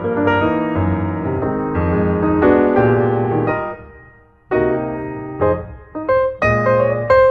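Background music on piano, playing chords and a melody; it fades to a short lull about four seconds in, then picks up again.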